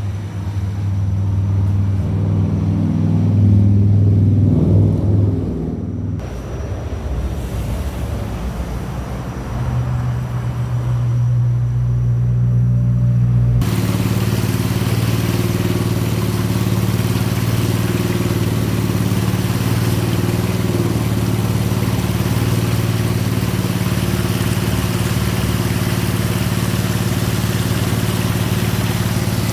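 Engine running after a radiator service, revved briefly in the first few seconds and then running steadily. About halfway through a steady hiss suddenly joins the engine sound.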